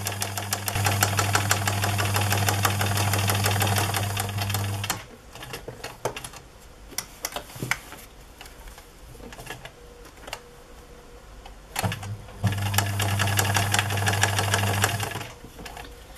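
Electric sewing machine stitching velcro onto a fabric bag: it runs steadily, speeding up about a second in, and stops about five seconds in. After a pause with a few light clicks, it runs again for about three seconds near the end.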